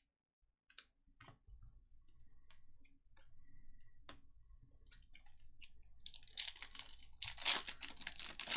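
Trading cards being handled at a table: scattered light clicks and taps, then a denser rustling run of handling noise in the last couple of seconds.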